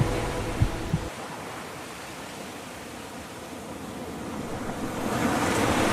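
The tail of the music ends about a second in with two sharp hits. A soft rushing noise like surf follows and swells louder about five seconds in.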